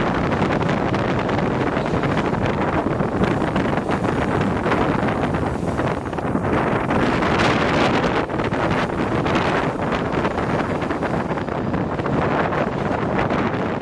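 Steady rush of wind buffeting the microphone at the open window of a moving diesel train, mixed with the train's running noise.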